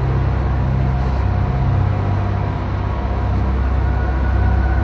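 Dark ambient industrial music: a dense, steady low drone with a few held tones above it and no clear beat.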